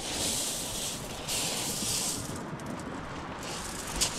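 Waves washing up and back over a shingle beach: a rough hiss that comes in surges about a second long, with a faint rattle of stones.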